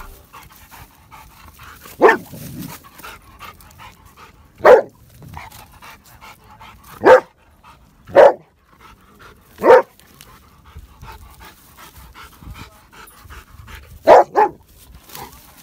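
Rottweiler barking at a snake: single loud barks one to two and a half seconds apart, then a pause of about four seconds and a quick double bark near the end.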